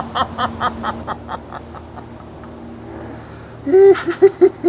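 Theatrical evil laughter: a run of quick 'ha' pulses fading away over the first second or so, then a loud burst of laughing near the end.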